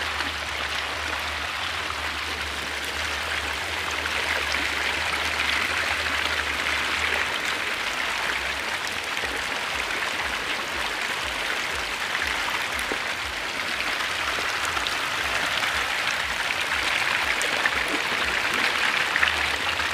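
Thousands of baby hybrid magur catfish churning and splashing at a pond's surface as they feed: a dense, steady patter of countless small splashes.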